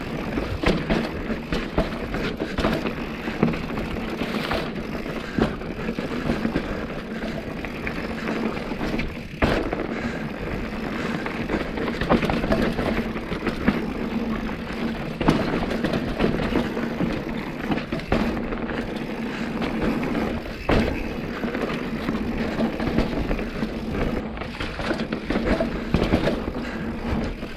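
Mountain bike being ridden along a trail: continuous rolling and rattling noise from the tyres and bike, with frequent short knocks over bumps.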